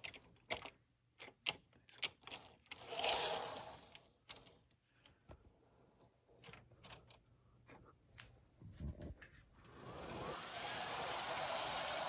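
Model train running on layout track, with irregular clicks of its wheels over the rail joints. About ten seconds in, a steady rushing noise starts and rises in level.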